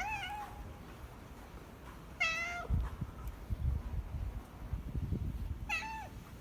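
A domestic cat meowing three times, short calls a few seconds apart, with soft low bumps of handling or movement between them.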